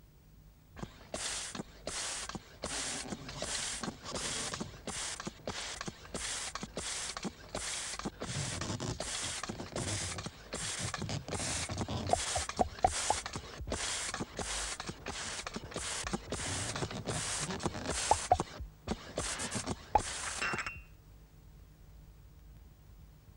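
Air pump inflating a rubber inflatable figure through a hose: a long run of evenly paced hissing pump strokes, about one and a half a second, with a few short rubbery squeaks in the second half, stopping near the end.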